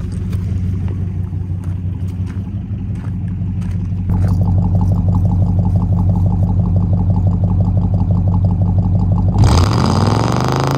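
1957 Ford Fairlane 500's 292 Y-block V8 idling steadily, heard at the tailpipe, with the engine still cold. Near the end it is revved once, the pitch rising and then falling.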